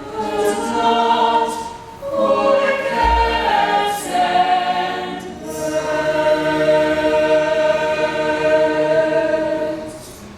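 A group of voices singing a stage-musical number in harmony, ending on a long held note that fades out near the end. A short low thump about three seconds in.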